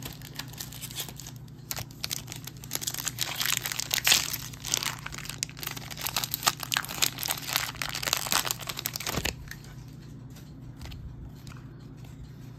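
A 2021 Donruss Optic football retail pack being torn open, its foil wrapper crinkling and crackling; this is loudest about four seconds in and stops about nine seconds in. After that come a few faint ticks as the cards are handled.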